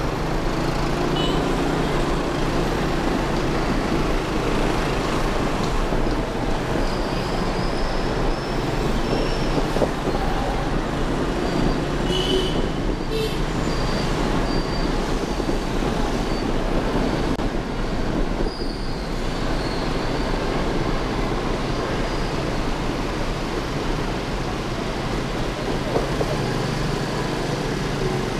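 Steady motorbike and city traffic noise heard from the back of a moving motorbike: engine, tyre and wind noise, with a few faint short high tones about a third of the way in.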